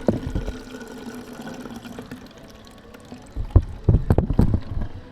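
Engine coolant draining out of a KTM Duke 390's radiator and pouring into a container, with a few loud knocks of handling, one just at the start and a quick cluster of them near the end.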